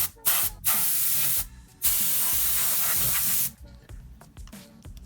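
Spray of compressed air hissing in short bursts, then two longer blasts of about a second and a second and a half, blowing loose debris off a pinball playfield.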